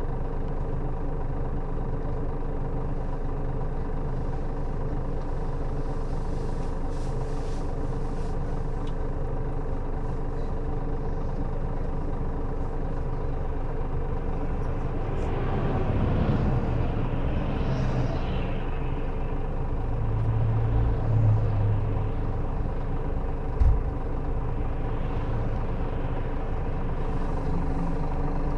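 Scania K400B coach's diesel engine running steadily at idle. About halfway through, a louder swell of noise rises and fades, followed by a short low burst and a single sharp knock near the end.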